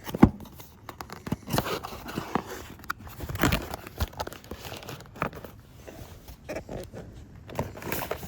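A drone's cardboard box and packaging being opened and the contents handled by hand, with irregular knocks and clicks among the handling noise.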